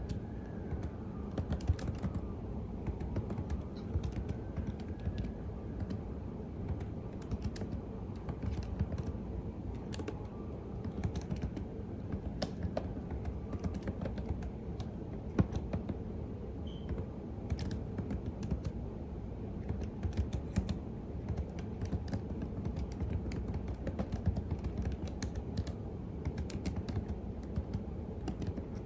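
Steady typing on a computer keyboard: a continuous run of key clicks at an uneven pace, with a few louder keystrokes, over a steady low rumble in the background.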